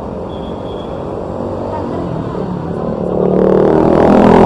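Busy city street traffic, with a motor vehicle passing close by near the end, its engine growing loud as it nears.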